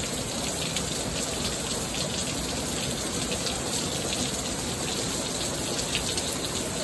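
Heavy summer rain falling steadily: a dense, even hiss with many sharp drop impacts close by.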